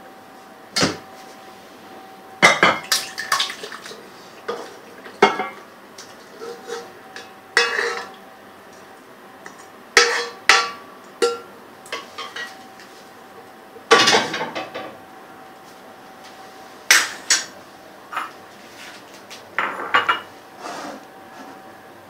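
A serving spoon scraping and knocking against a cooking pot and a serving bowl as curry is ladled out: irregular clinks and clatters, some single, some in quick runs.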